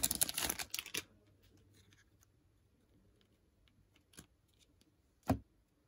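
Foil wrapper of a baseball card pack crinkling for about a second, then faint ticks of a stack of cards being handled, a small click, and one short knock near the end.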